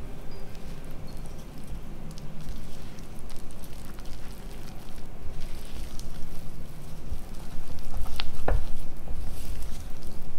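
Soft yeast bread dough being mixed and kneaded by hand, with wet, sticky handling noises, low thuds and a couple of sharp taps about eight seconds in.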